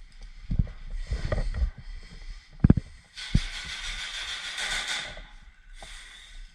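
Scattered knocks and thuds from movement and gear handling during an airsoft game, the loudest nearly three seconds in, with a couple of seconds of hissing noise in the middle.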